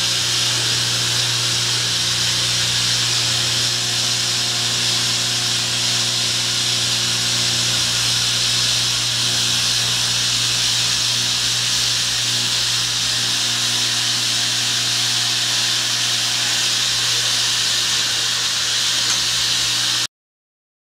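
Steam hissing steadily from a standing 1930s steam locomotive, with a steady low hum underneath; it cuts off suddenly near the end.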